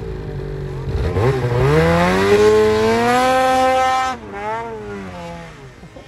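Snowmobile engine revving hard: its pitch climbs steeply over about a second and holds high. After about four seconds it drops off suddenly and runs on lower and wavering.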